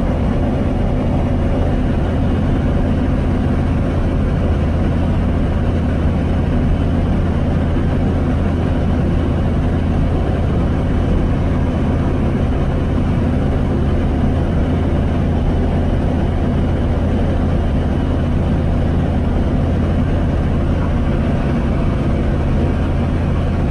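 Apollo Fox ultralight aircraft's engine and propeller droning steadily in flight, heard from inside the cockpit at an unchanging pitch.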